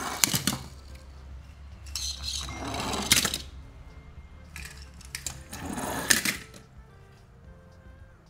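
Toy packaging being handled and opened: three rustling, crinkling bursts of about a second each, the loudest ending in sharp clicks, over soft background music.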